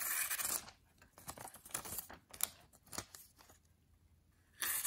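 Tramontina pocket knife blade slicing through a paper receipt held in the hand, testing the factory edge: a long hissing slice at the start, a run of small crackling cuts and paper rustles, then a second long slice near the end. The factory edge cuts the paper fairly well.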